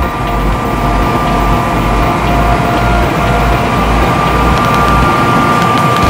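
John Deere W550 combine harvester running while cutting grain, heard from inside the cab: a steady, dense machine noise with a steady whine over it.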